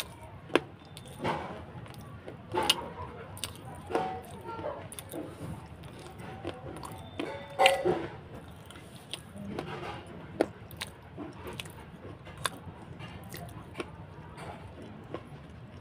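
Close-up crunching and chewing of edible clay in the mouth: irregular sharp cracks and clicks, the loudest a little under eight seconds in.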